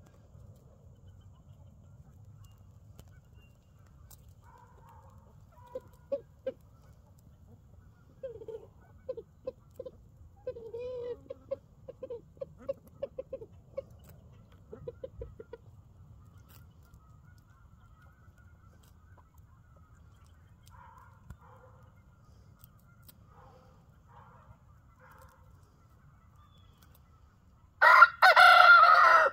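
Chickens clucking in runs of short notes. Near the end a rooster crows loudly.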